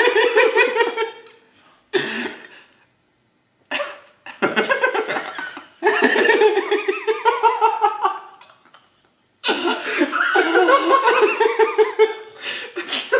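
A group of men laughing hard together in long bouts, with brief quiet breaks between them.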